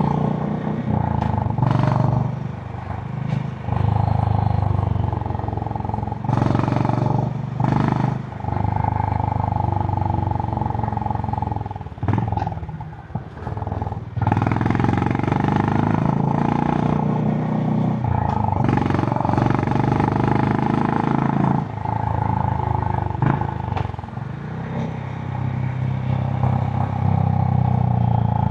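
Honda H'ness CB350's air-cooled single-cylinder engine running through its stock exhaust under way. The note is steady, drops off several times as the throttle closes, with the longest lull about twelve to fourteen seconds in, then picks up again.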